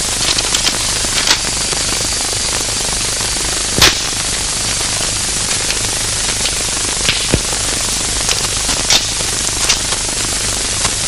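Steady hiss and low hum from a worn old film soundtrack, with irregular crackles and pops. The loudest pop comes about four seconds in.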